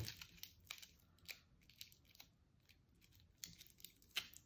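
Tinfoil crinkling faintly in scattered soft crackles as it is squeezed lightly by hand into a small shape.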